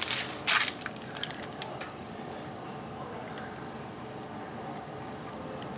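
Two short rustles and a few faint clicks in the first second and a half, then a low steady hiss.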